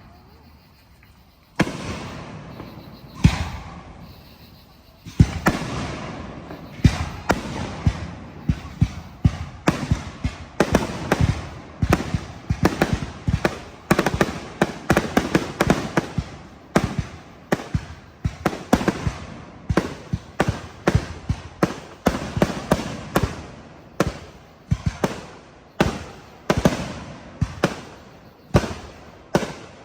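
Fireworks bursting in sharp bangs, each trailing off in echo. After a short lull at the start the bangs come sparsely, then from about five seconds in they follow fast, often several a second.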